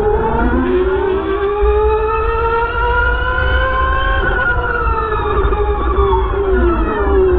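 High-pitched whine of the Volkswagen I.D. R Pikes Peak's electric drivetrain. The pitch rises steadily for about four seconds as the car accelerates, then falls as it slows for a hairpin, over a steady low rumble.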